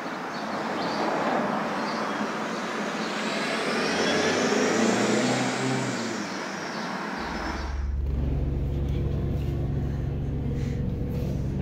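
City traffic ambience, a steady wash of road noise. It cuts off about eight seconds in, replaced by a low steady drone.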